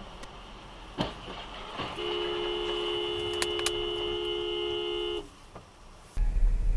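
Car horn held for about three seconds, a steady blare of two close notes, after a couple of faint clicks over quiet road noise. Near the end a loud low rumble cuts in suddenly.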